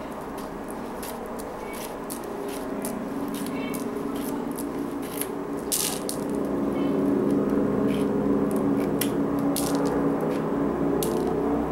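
Plastic pony beads of a peyote-stitch Kandi panel clicking and rattling as the panel is handled and its threads tied, with a hand rummaging among loose beads about six seconds in. Under the clicks, a low steady hum grows louder from a few seconds in and is the loudest sound in the second half.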